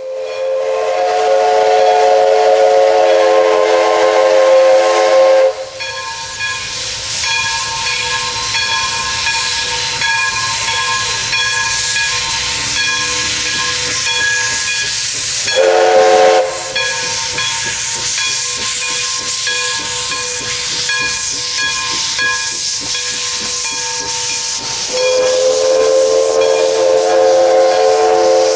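Essex Terminal Railway No. 9, an 0-6-0 steam locomotive, blows its steam whistle: a long blast, a short one about 16 seconds in, and another long blast starting about 25 seconds in. Between the blasts there is steam hissing and the regular chuff of its exhaust as it pulls its train.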